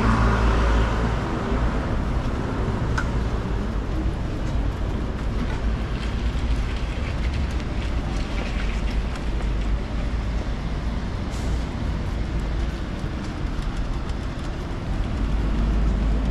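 Road traffic on a city street: a steady rumble of passing vehicles.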